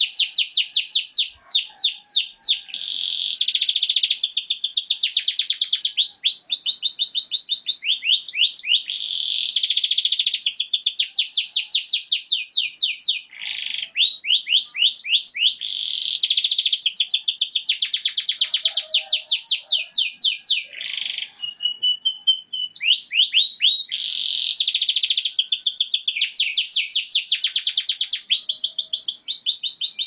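Male domestic canary singing its breeding song: long rolls of fast repeated notes, each phrase changing speed and pitch, with only brief pauses about 13 and 21 seconds in. This is the courtship song used to bring female canaries into breeding condition.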